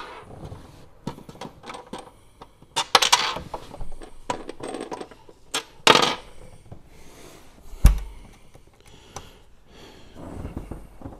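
Wing screws being taken out of the metal floor of a boat console's day box: scattered clicks, clinks and knocks of the screws against the metal, the loudest about three and six seconds in, and a knock with a low thump near eight seconds in.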